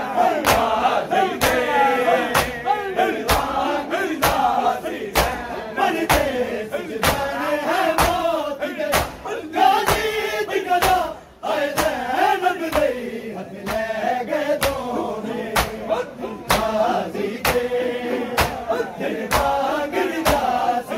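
A crowd of men chanting a mourning noha together while beating their bare chests in unison (matam), the hand slaps landing in a steady rhythm of sharp claps under the singing. Slaps and chant drop away briefly about eleven seconds in.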